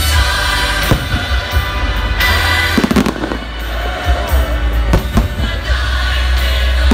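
Aerial fireworks shells bursting in a show, a string of sharp booms, with music playing underneath.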